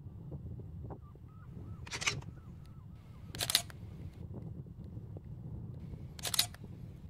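Camera shutter firing three times, a couple of seconds apart, each a short crisp click, over a steady low rumble.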